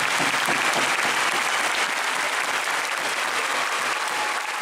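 Large audience applauding, the applause slowly easing off.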